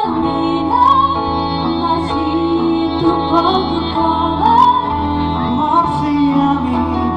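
A mixed vocal group of women and men singing in harmony, with the women's voices on top, amplified through stage loudspeakers.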